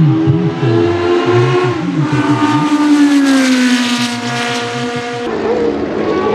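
Historic 1970s–80s Formula 1 racing engine running at high revs, its pitch sliding slowly downward, then changing abruptly to another engine note about five seconds in.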